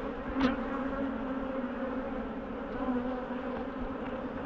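Honeybees buzzing steadily over an opened hive, a continuous droning hum, with one brief knock about half a second in.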